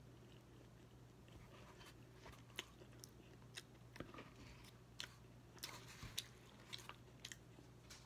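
Faint close-up chewing of a rice-and-noodle bowl, with scattered short wet mouth clicks starting about two and a half seconds in, over a low steady hum.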